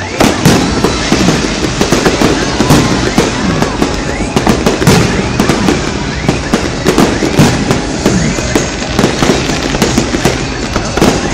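Fireworks display: a rapid, unbroken run of bangs and crackles from bursting aerial shells, many a second, with voices underneath.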